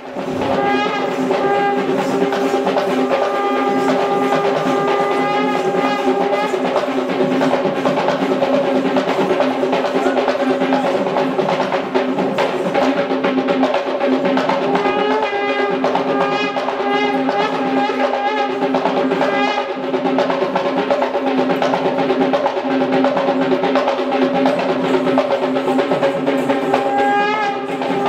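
Music: dense, steady drumming with a held, wavering wind-instrument melody over it.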